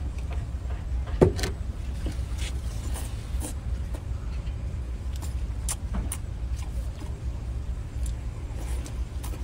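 Wet sucking, smacking and clicking mouth sounds of eating king crab legs, as short scattered sounds, the loudest about a second in. Under them is a steady low rumble.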